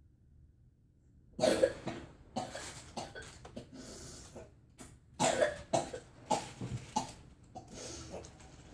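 Person with whooping cough having coughing fits: a run of rapid coughs starting about a second and a half in, then a second run about five seconds in.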